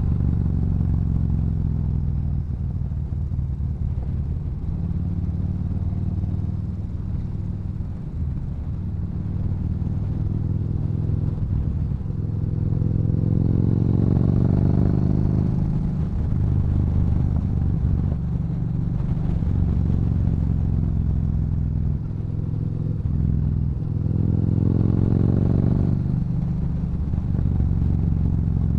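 Yamaha Bolt's air-cooled V-twin breathing through an aftermarket Cobra exhaust, running steadily at cruising speed. It rises in pitch under acceleration about halfway through and again near the end.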